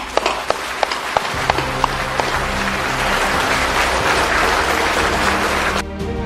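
Applause from a room full of people: a few separate claps at first, swelling into dense, steady clapping that cuts off shortly before the end. Background music plays underneath from about a second in.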